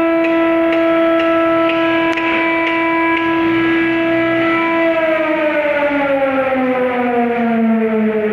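Air compressor giving a loud, steady whine with a clear pitch and overtones; about five seconds in, the pitch begins to slide slowly and evenly downward as the machine winds down.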